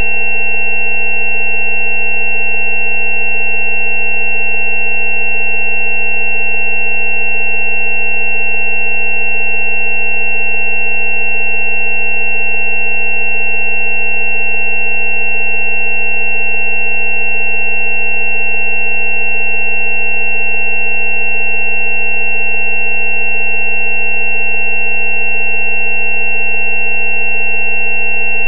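Steady electronically generated sine tones: a low tone at about 190 Hz with several higher tones layered above it, the loudest a high, thin tone.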